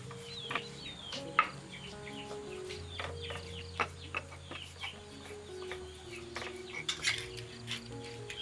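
Chickens clucking and small birds chirping, with scattered sharp knocks of a stone pestle against a stone mortar as a turmeric spice paste is ground, over soft instrumental background music.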